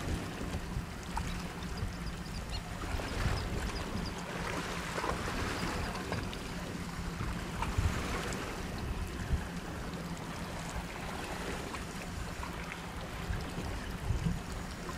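Boat engine idling steadily, with wind on the microphone and the wash of choppy sea water.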